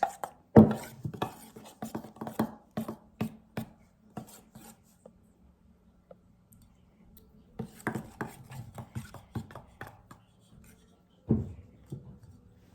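Metal spoon stirring a thick glue mixture, clicking and knocking against its container in quick runs of strokes, with a pause in the middle and a louder knock near the end.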